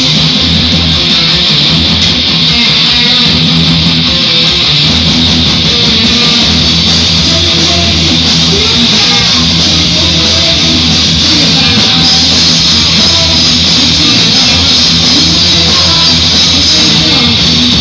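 Live rock band playing loud, steady heavy rock on electric guitars, bass guitar and drums.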